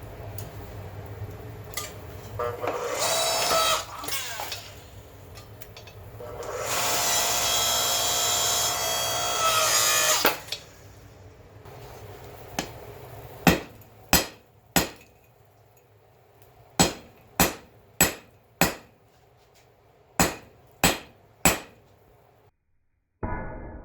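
An electric power tool runs twice for a few seconds each time, its pitch sagging as it winds down. Then come about ten sharp hammer taps on metal in three short groups, with a short muffled noise just before the end.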